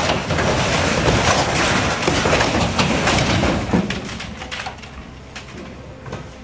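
Hydraulic grab crane crushing the cab of a Ford pick-up truck: a dense crunching and cracking of bending metal and glass for about four seconds, ending in a knock, over the crane's engine running. Then the grab lifts clear and the noise drops to the engine and a few scattered clicks.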